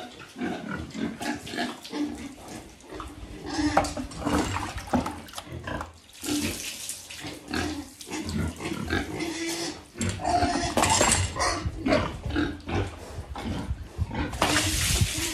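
Breeding sow grunting repeatedly while being scrubbed with a brush during a bath, with a rush of water poured from a bucket over her near the end.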